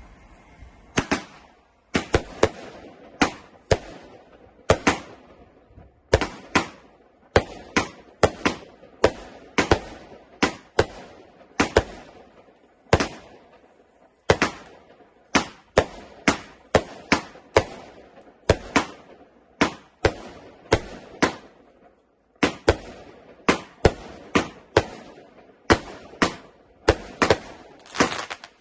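Hallmark Fireworks 'Bonfire Bash' firework cake firing a long series of sharp bangs, roughly one to three a second, each trailing off briefly. The shots come in groups with short lulls between them.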